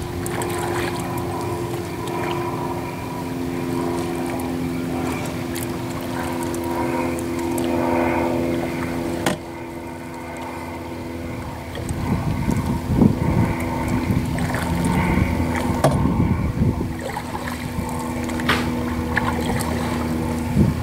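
Paddling a plastic canoe with a double-bladed paddle, the blades dipping and splashing, over the steady drone of a motor. Irregular low rumbles of wind on the microphone come in the second half.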